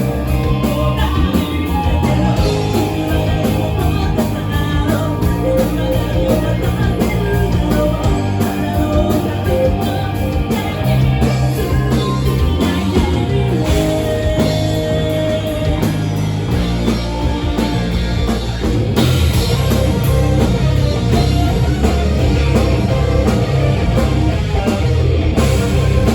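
A rock band playing live: drum kit, electric guitar and bass, with singing over them.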